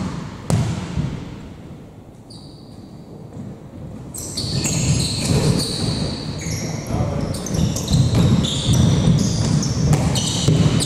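A basketball being dribbled, a bounce roughly every 0.7 seconds, which stops within the first second. From about four seconds in come many short, high squeaks of basketball shoes on the court.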